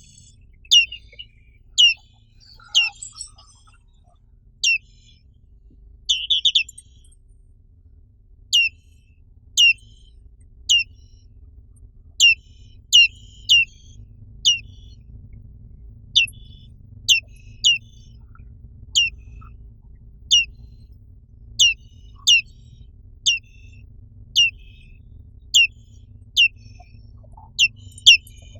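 Black-capped white-eye (Zosterops atricapilla) calling: a long string of short, sharp notes, each sweeping quickly down in pitch, repeated about once a second at uneven spacing, with a brief twittering flurry twice, over a faint low hum.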